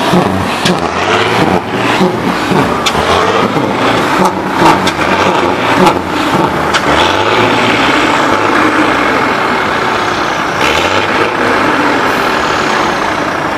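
Car engines running loudly, revved up and down at times, with a few sharp clicks.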